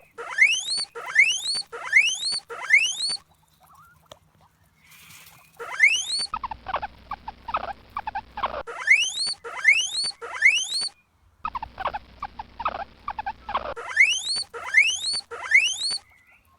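Guinea pig wheeking: groups of loud, rising squeals, about four in quick succession, alternating with runs of shorter, quicker squeaks, with a quiet pause of a couple of seconds near the start.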